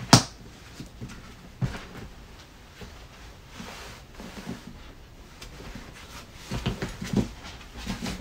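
Handling of a collectible figure's packaging: a sharp click right at the start, then scattered knocks and light rustling, with a quick run of knocks near the end.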